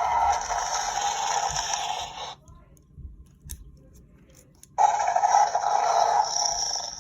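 Recorded dinosaur call played twice through a toy dinosaur's small built-in speaker, each call lasting two to three seconds and cutting off suddenly. A few faint clicks fall between the two calls.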